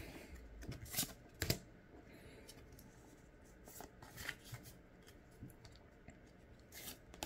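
Pokémon trading cards being handled and slid through a stack by hand: soft card-stock sliding with a few light taps, two clearer ones about a second in.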